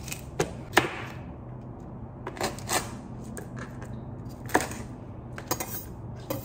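A knife whacking a lemongrass stalk against a cutting board to bruise it and release its scent: a series of sharp, irregular knocks, several in pairs.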